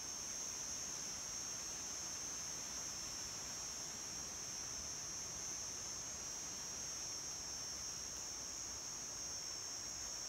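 Forest insects, cicadas or crickets, keeping up a steady high-pitched drone that does not change or break.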